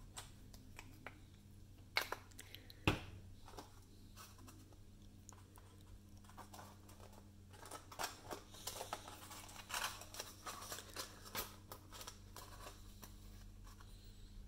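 Glitter cardstock being handled, faint: a couple of sharp taps about two and three seconds in, then from about eight seconds in several seconds of paper rustling and crinkling as the hat pieces are fitted together.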